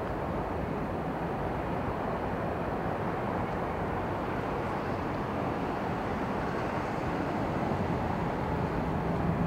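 Distant Boeing 767 jet engines at taxi power, heard as a steady low rumble of jet noise.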